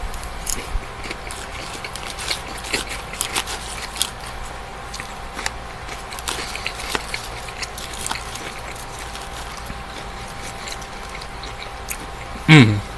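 Close-up chewing of a mouthful of spinach salad: many small wet mouth clicks and crunches, thinning out after about eight seconds. A brief falling 'mm' from the eater comes near the end.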